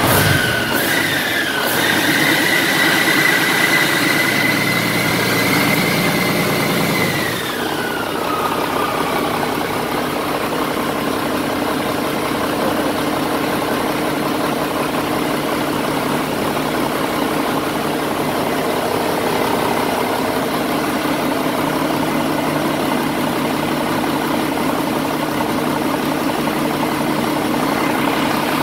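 Rebuilt Mack diesel engine running on a test stand during its break-in run-in. It runs with a high whine for about seven seconds, then the whine glides down as it settles into a steady idle.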